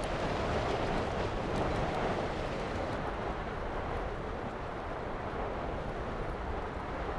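Steady rushing roar of an erupting volcano mixed with wind, easing slightly about three seconds in.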